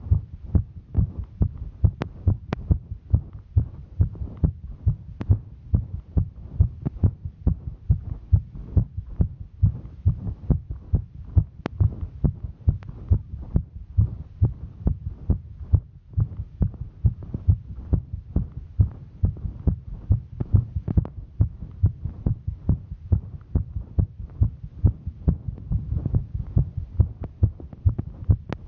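A woman's heartbeat heard close up during a hike: a steady, even run of low thudding beats, with a few faint clicks over it.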